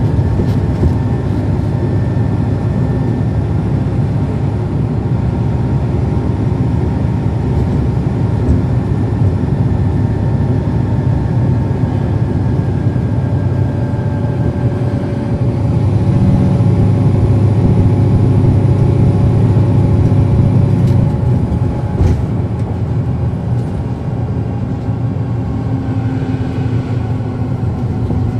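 Cummins ISL9 diesel engine of a 2010 NABI 416.15 transit bus, heard from inside the bus as it drives, a steady drone with slowly drifting pitch. It grows louder and fuller a little past the middle, as under harder acceleration, then eases off after a single knock about three quarters of the way through.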